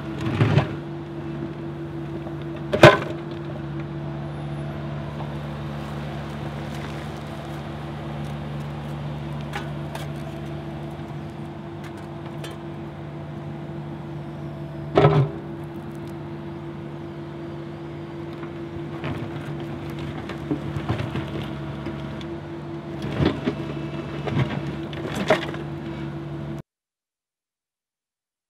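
Heavy construction equipment's diesel engine running at a steady speed, with a few sharp knocks or clanks over it, the loudest about three seconds in. The sound cuts off suddenly near the end.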